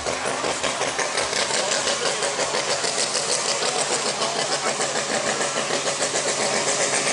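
Big pulling-tractor engine running at the start line with an even, rapid pulsing beat, held at a steady speed while the tractor waits to pull.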